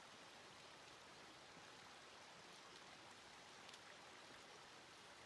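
Near silence: a faint, steady hiss of outdoor background noise.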